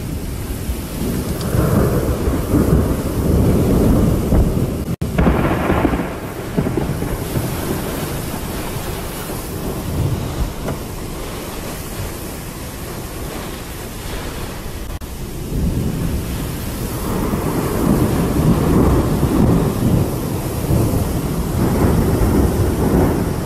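Heavy storm of wind and rain with deep rumbling surges, loudest over the first six seconds and again from about sixteen seconds on. The sound cuts out for an instant about five seconds in.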